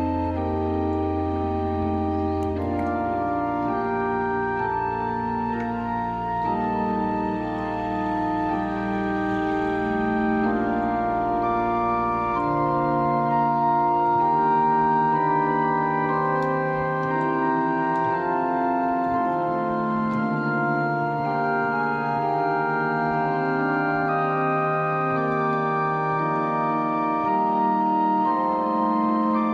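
Allen two-manual digital organ playing sustained chords. A low bass note under them drops out about two and a half seconds in, and a new one enters about twelve seconds in.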